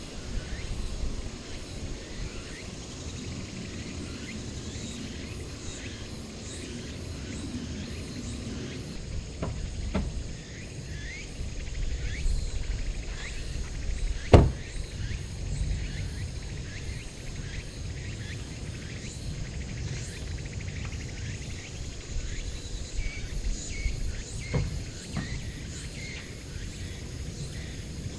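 Outdoor summer ambience of insects chirping over a low rumble, with a single sharp thump about halfway through, fitting a car door being shut. Two fainter knocks come a few seconds before and after it.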